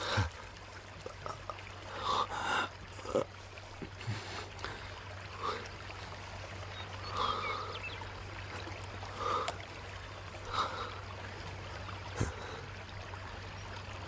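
A wounded man's pained breathing: short gasps and breaths every second or two.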